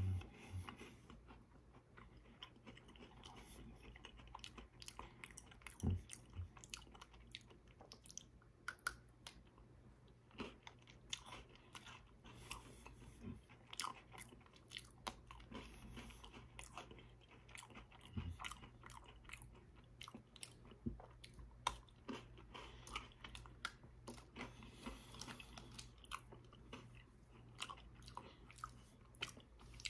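A person biting and chewing crisp chocolate-coated biscuit sticks (cookies-and-cream Pocky), a faint run of small crunches with a few sharper snaps of bitten-off sticks.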